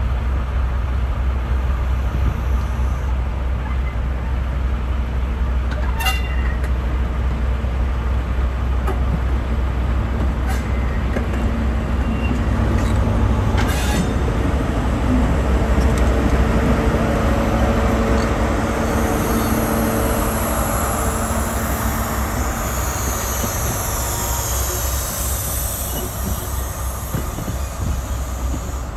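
Diesel train's engine running at a station, a steady deep rumble, with a couple of sharp clicks about a third and halfway through and a high hiss that comes in for the last third.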